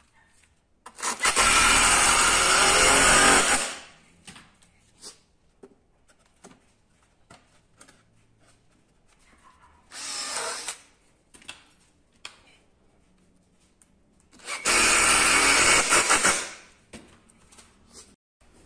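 Electric drill running in two loud, steady bursts of about two to three seconds each, with a shorter, quieter whir in between and small knocks of handling.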